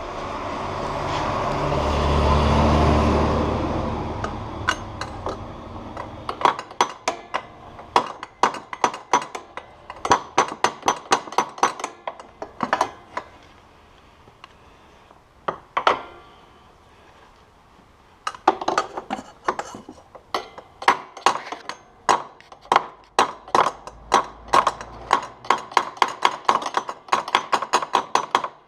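A rumbling noise swells and fades over the first few seconds. Then come runs of quick metallic clicks and clinks, about three or four a second, from hand tools working on metal, pausing for a few seconds midway.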